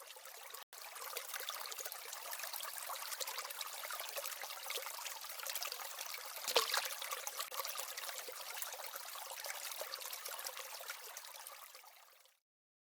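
Flowing-water sound effect: a steady trickling stream with no low end. It breaks off for an instant near the start, swells briefly about halfway, then fades and stops shortly before the end.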